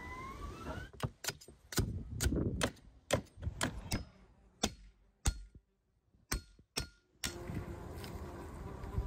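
A meat cleaver and a long knife struck against each other in a run of about a dozen sharp metallic clinks, some of them ringing briefly.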